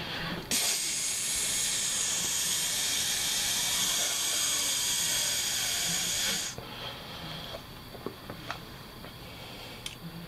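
A loud, steady hiss, like air or gas escaping under pressure, that starts abruptly about half a second in and cuts off suddenly some six seconds later. A few faint clicks follow.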